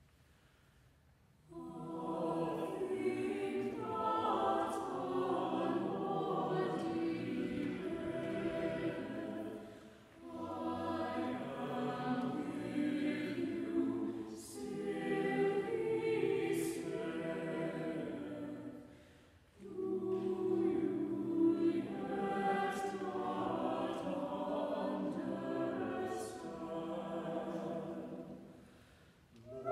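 Mixed choir of men's and women's voices singing unaccompanied, starting about a second and a half in after near silence, in long phrases with short pauses between them.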